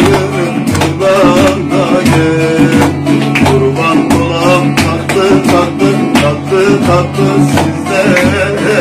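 Bağlama (long-necked Turkish saz) played briskly in a folk-song instrumental passage, with hand claps keeping the beat.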